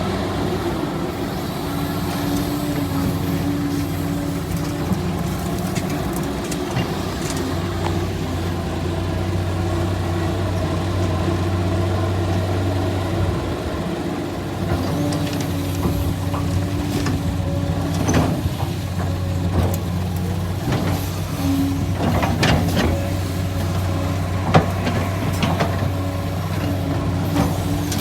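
Heavy earthmoving machine's engine running steadily, its note shifting a little as the load changes, with scattered sharp knocks in the second half.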